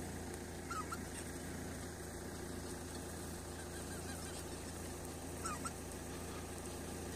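Flock of wild geese honking faintly: a short call about a second in and two more around five and a half seconds in, over a steady low hum.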